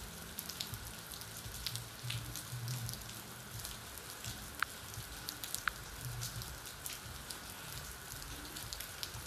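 Faint steady background hiss with scattered light ticks and a low hum.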